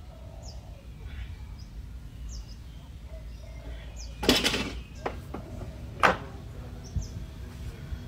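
A bird repeats a short, falling chirp about once a second. Around four seconds in there is a loud noisy rush lasting under half a second, then a few sharp knocks, the loudest about six seconds in.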